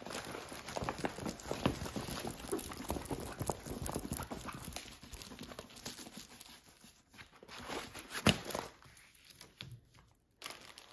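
Plastic film and paper rustling and crackling as a rolled diamond-painting canvas is unrolled and smoothed flat, with a single sharp knock about eight seconds in.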